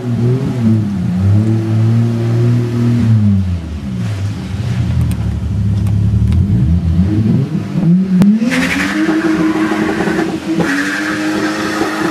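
Turbocharged BMW E30 320i engine revving up and down repeatedly. About eight seconds in there is a sharp crack, then the engine holds at high revs while the rear tyres spin and squeal as a burnout begins.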